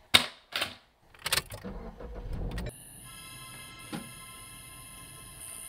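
Film sound design: a few sharp clicks and knocks, then a low rumble that cuts off abruptly, giving way to a steady electronic drone of held tones with one more click partway through.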